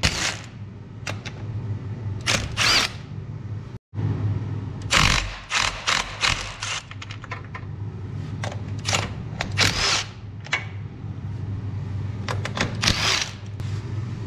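Cordless impact driver with a socket running in short bursts on truck battery terminal nuts, with clicks and knocks of the tool against the terminals, over a steady low hum.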